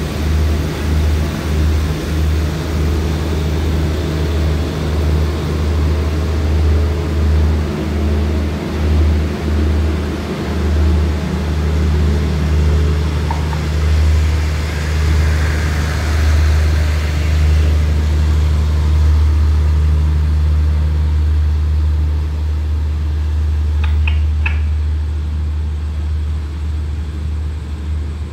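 State Railway of Thailand passenger train pulling out of the station: a loud, low rumble that throbs in a quick rhythm at first, then settles into a steady drone as the coaches roll away. A few short, sharp clicks near the end.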